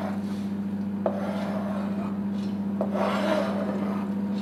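A knife blade scraping chopped boiled egg across a plastic cutting board into a bowl, in two scraping passes, over a steady low hum.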